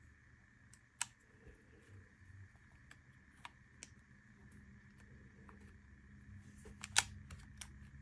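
Small metallic clicks and snaps of a Springfield Armory Prodigy pistol's parts being handled during reassembly. There is a sharp click about a second in, a few lighter ones after it, and the loudest snap near the end.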